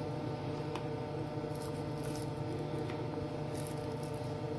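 Steady low hum with a few faint, soft handling sounds as squares of raw chicken-mince nugget mixture are lifted and set down on a plastic cutting board.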